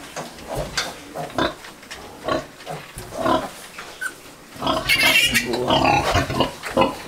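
Sow and newborn piglets grunting and squealing in short, separate calls, with a louder, busier stretch of squealing about five seconds in.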